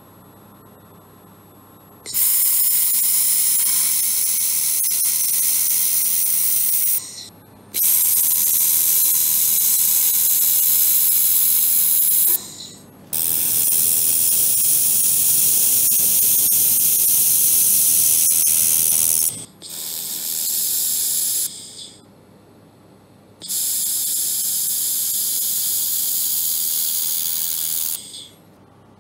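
A 1.5 kW handheld laser welding torch fires on a metal tube joint, giving a loud, even hiss in five bursts of a few seconds each. Each burst switches on and off sharply, and the fourth is shorter and quieter than the others.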